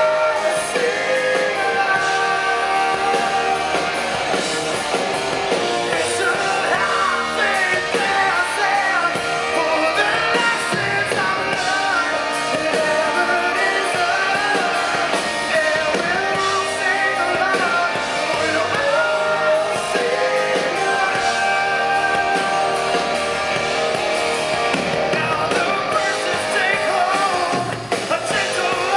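Male rock singer belting a song live over a full rock band, the voice carrying a soaring melody above the band.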